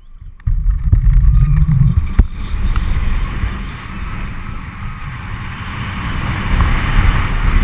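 Gerstlauer steel roller coaster train dropping off the lift and running through inversions: wind buffeting the microphone over the low rumble of the wheels on the track. It starts suddenly about half a second in, with a sharp clack about two seconds in.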